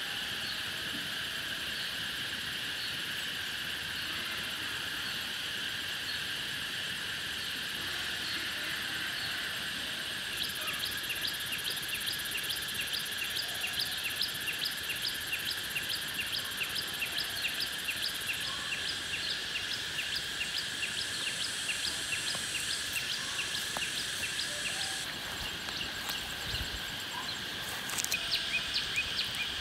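Steady insect chorus humming in high, even bands, joined about a third of the way in by an evenly repeated chirp, about two a second, that fades out near the end.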